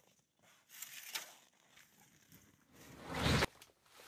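Footsteps crunching in snow, then a louder rushing noise that swells and cuts off suddenly about three and a half seconds in.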